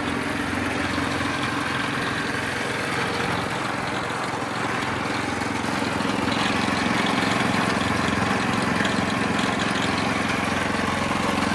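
Small engine running steadily on a gold trommel wash plant, with a constant wash of machine and water noise around it, a little louder from about six seconds in.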